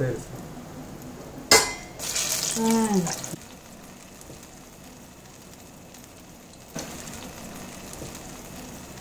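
Urad dal bonda batter deep-frying in hot oil in a kadai: a steady sizzle and bubbling, louder for about a second from two seconds in, with a sharp knock just before it.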